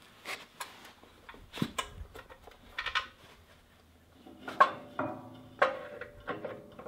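Metal knocks and clanks as a Honda GX200 engine is set down and shifted on a rototiller's steel mounting plate. A few light knocks come first, then louder clanks that ring briefly about two-thirds of the way in.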